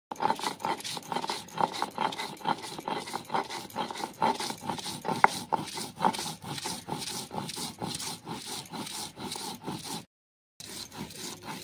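Stone roller scraping and grinding pointed gourd peels with chillies on a flat Bengali grinding stone (shil-nora), in quick, even back-and-forth strokes, with a short break near the end.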